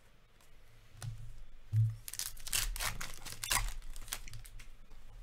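Hockey trading cards being slid and flicked against one another in the hands: a low bump about two seconds in, then a couple of seconds of quick papery swishes and flicks.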